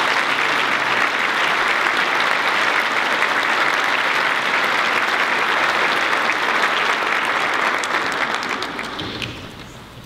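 Audience applauding, a dense steady clapping that dies away near the end.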